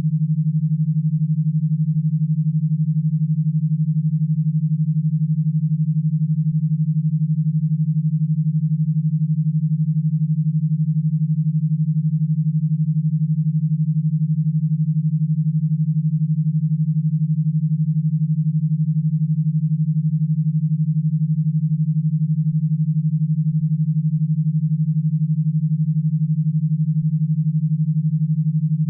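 Synthesized e-stim signal: a steady low electronic tone near 150 Hz, pulsing 12 times a second, made to drive stimulation electrodes through an e-stim power box rather than to be listened to.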